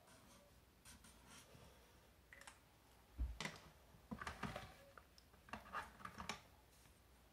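Felt-tip marker scratching faintly on paper, then a sharp knock about three seconds in as the marker is set down on the table, followed by a run of light plastic clicks and rattles as markers are picked through in their box.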